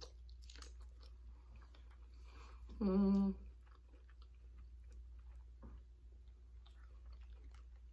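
Faint chewing and mouth clicks of a person eating, with one short hummed "mm" about three seconds in.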